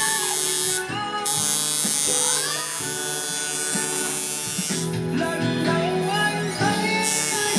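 Sunskin coil tattoo machine running at 7 volts, a steady electric buzz that runs very evenly, with a pop song's singing and music playing along.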